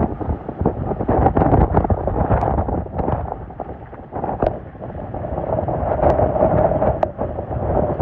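Hurricane-force wind blowing hard across the microphone: a constant rush with frequent sudden blasts as gusts hit.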